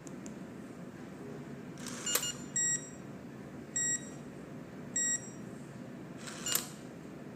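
Electronic door lock giving three short, identical beeps about a second apart, with a plastic click before the first beep and another after the last.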